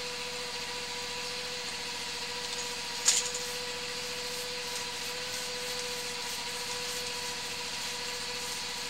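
Steady machine drone with a constant whine, like an engine idling, and one sharp knock about three seconds in.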